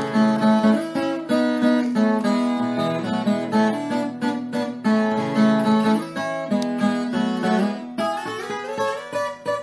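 Instrumental background music: a plucked acoustic guitar playing a melody of short, changing notes.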